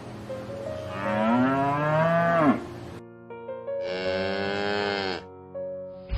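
Cows mooing: two long moos, the first about a second in and the second near four seconds in, each rising and then falling in pitch.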